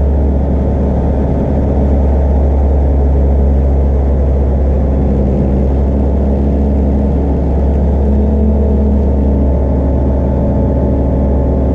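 Piston engine and propeller of a light single-engine aircraft in flight, a loud steady drone heard from inside the cockpit.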